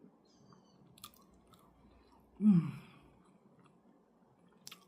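A person chewing food close to the microphone, with a few faint wet clicks and smacks. About two and a half seconds in comes one short hummed "mmm" that falls in pitch.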